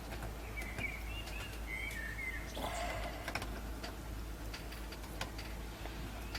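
A small bird chirping in short, wavering calls twice in the first two seconds, over a steady low hum. A brief rustle comes about three seconds in.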